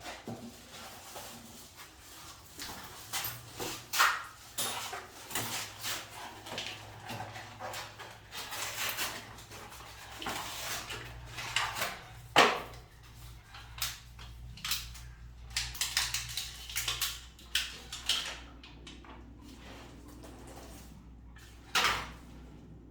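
Hands-on handling noises while fitting a toilet wax ring onto the drain pipe: scattered scraping and rubbing with a few sharp knocks, the loudest about twelve seconds in and near the end, over a faint steady low hum.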